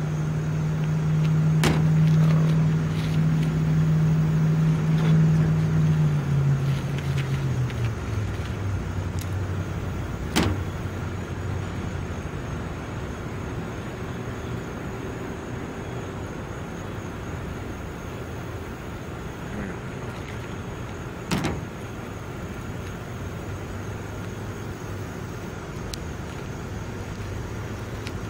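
A motor vehicle engine running with a steady low hum that drops in pitch and quietens about seven seconds in, then carries on more softly. Three sharp clicks or taps stand out over it, the strongest about three-quarters of the way through.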